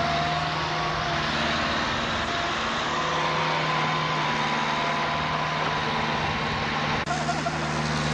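Heavy diesel engine running steadily at a constant pitch, with a brief dropout about seven seconds in.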